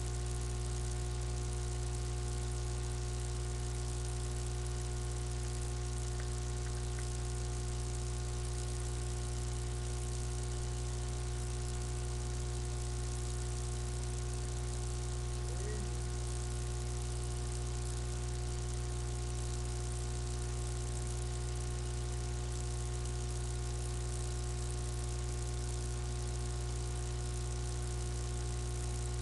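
Steady electrical mains hum with many overtones over a hiss, unchanging throughout.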